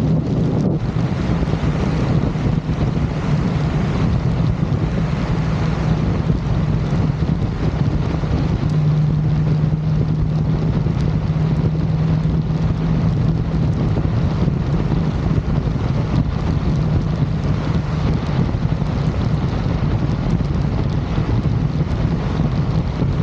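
2024 Ford Mustang GT's 5.0-litre Coyote V8 through its stock active exhaust, cruising with a steady low drone, heard under strong wind buffeting on an outside microphone.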